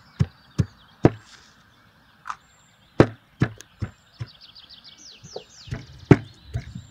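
Heavy steel cleaver chopping raw fat on a wooden stump block: sharp irregular chops, three in the first second, a pause, then more strikes and a quick run of lighter taps, the loudest near the end.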